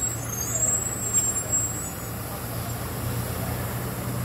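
Irisbus Cityclass city bus pulling away from a stop, its engine running with a steady low hum. A thin high-pitched squeal sits over it and fades out about two seconds in.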